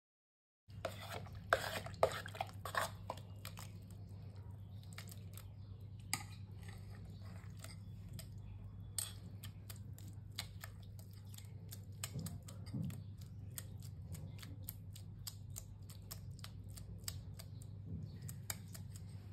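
Hands squeezing and kneading churned cream in a steel bowl: soft wet squelching and crackling as the butter is pressed together and the buttermilk squeezed out, busiest in the first few seconds. A steady low hum runs underneath.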